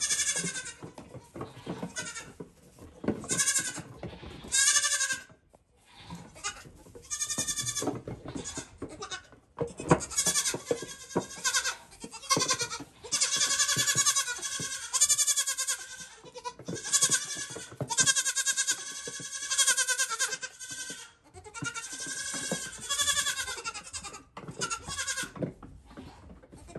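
Several goat kids bleating over and over, high wavering calls that overlap into a near-continuous chorus through the middle stretch, with short knocks of small hooves on a wooden bench.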